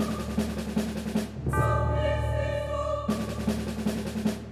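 Background music: sustained choir chords with rapid drumming that comes in twice, at the start and again about three seconds in.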